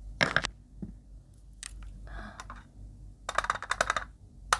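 A glass jar of Lotus Biscoff spread being opened by hand: scattered clicks from the jar and lid, then a quick run of crackly crinkling as the foil seal is peeled off the top, ending in a sharp click.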